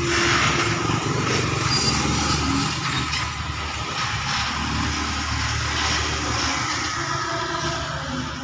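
Bus engine running with a steady low rumble as the bus moves slowly, easing off slightly near the end.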